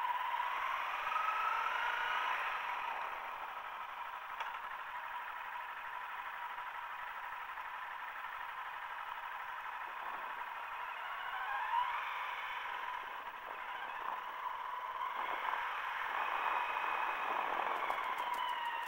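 Honda CRF250L's single-cylinder four-stroke engine running on the move, its pitch climbing a few times as the rider accelerates through the gears.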